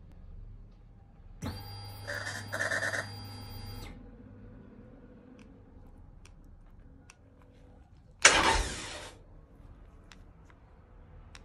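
Start attempt on a 2015 Triumph Rocket X with a faulty starter circuit. About a second and a half in there is an electric whir with steady tones for about two and a half seconds. About eight seconds in comes one loud, harsh burst that dies away within a second, as the starter is pressed without the engine catching.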